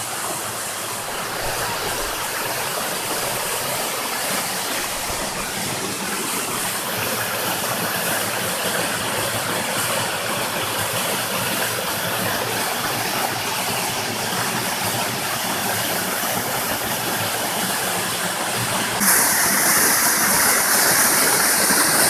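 Steady rush of water from a small mountain stream and Millomeris waterfall. About three seconds before the end the rush gets suddenly louder and hissier.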